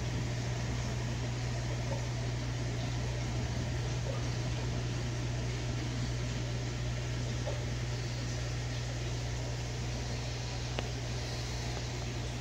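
Steady low mechanical hum under an even hiss, holding the same pitch and level throughout.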